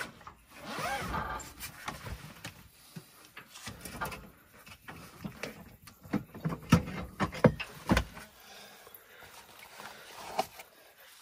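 Gear being handled in the back of a four-wheel drive: a portable car fridge's lid lifted and a glass beer bottle taken out, with a cluster of sharp clicks and knocks about six to eight seconds in.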